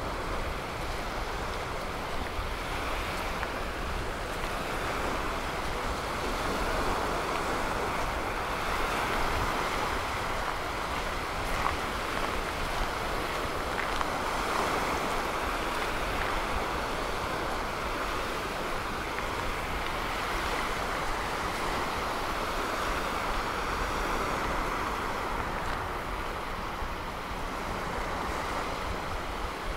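Gulf surf washing onto the beach in a steady hiss that swells gently every few seconds, with wind rumbling on the microphone.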